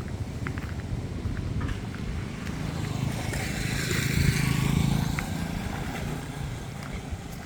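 A road vehicle passing by: its engine and tyre noise grows louder, peaks about four to five seconds in, then fades away.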